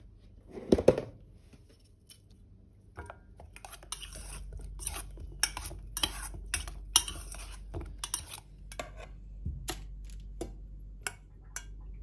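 Broccoli and cauliflower florets being mixed into sauce in a stainless steel bowl: a run of clinks and scrapes against the metal, after a single thump about a second in.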